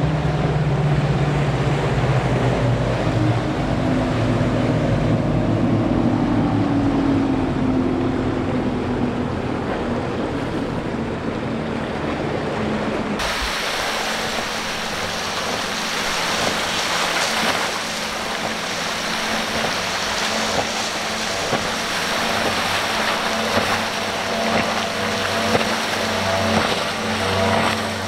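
Twin Mercury outboards on a Donzi center-console boat running at speed past the camera, with the rush of spray and wake, the engine pitch sinking slightly as it goes by. About 13 seconds in the sound changes abruptly to wind and waves, with a faint boat engine in the distance.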